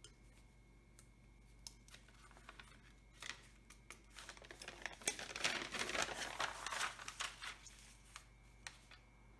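Sheets of paper rustling and crinkling as they are handled and shifted on a cloth-covered table, loudest about five to seven seconds in, with a few small pen clicks and taps before it.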